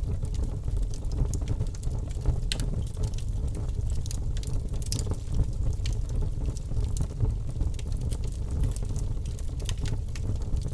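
Fire burning: a steady low rumble of flames with scattered sharp crackles and pops.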